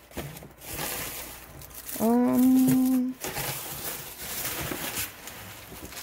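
Paper rustling as items are lifted out of a package, with a woman's voice holding one steady hummed note for about a second near the middle.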